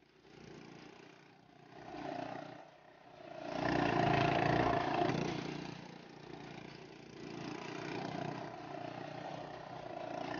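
Small ATV (quad bike) engines running as the quads ride past close by, loudest about four to five seconds in, then a steadier engine sound as another quad approaches.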